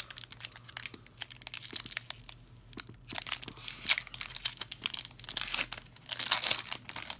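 Foil wrapper of a Pokémon trading-card booster pack crinkling and tearing as it is opened by hand: a run of irregular crackles, louder around four seconds in and again near the end.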